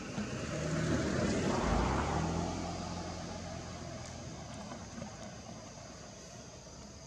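A motor vehicle passing by: engine and road noise swell to a peak about two seconds in, then fade away.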